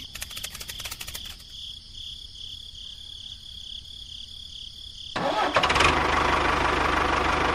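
A steady high-pitched whine, with rapid clicking in the first second or so, then about five seconds in a tractor engine starts and keeps running, loud with a low rumble.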